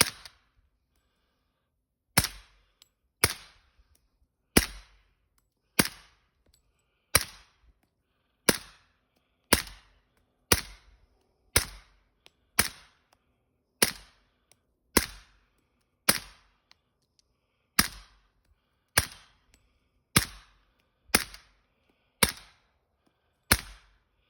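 Suppressed CMMG .45 ACP firearm fired about twenty times in steady semi-automatic single shots, roughly one shot a second, each a sharp crack with a short echo.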